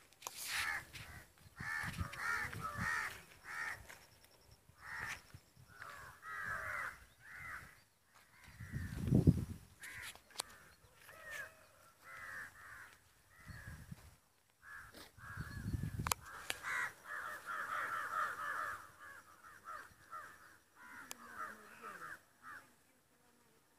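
Crows cawing over and over, several calls overlapping at times. Two brief low rumbles on the microphone come about nine and sixteen seconds in.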